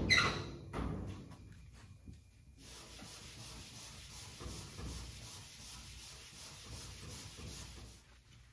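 A red Scotch-Brite pad scrubbing metal prep into a galvanized sheet-steel cowl panel, a steady rubbing hiss. It opens with a sudden knock that rings briefly, with a second smaller knock about a second in.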